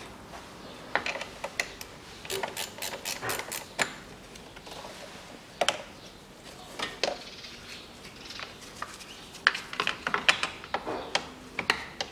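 Ratchet wrench clicking in short quick runs, with scattered metal clicks and clinks in between, as the car battery's terminal and clamp nuts are undone.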